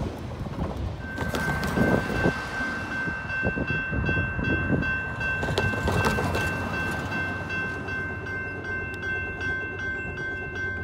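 Railroad grade-crossing warning bell ringing steadily from about a second in, with a car driving over the crossing about two seconds in and again about six seconds in.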